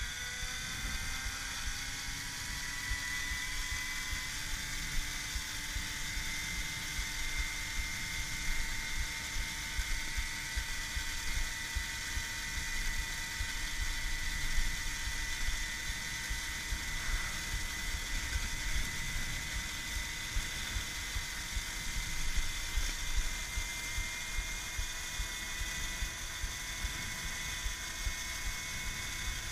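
Electric Babetta 215 moped's Axi 5345/14HD brushless motor and drive whining under power, the pitch rising over the first couple of seconds and then holding steady near top speed, over a low rumble of wind and road noise.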